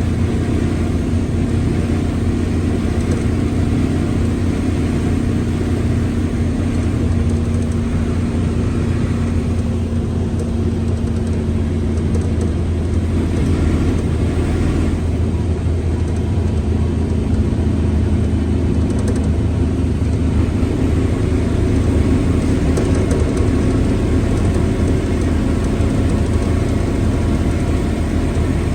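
Mercedes-Benz OF1721L BlueTec 5 bus running with a steady low drone, its gearbox growling. The pitched hum dips in the middle and returns near the end.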